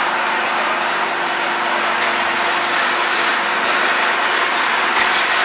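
Hydraulic press's pump unit running, a steady hum and hiss of machinery.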